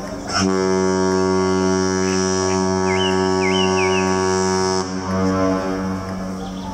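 A ship's horn sounding one long steady blast that stops about five seconds in, laid over background music.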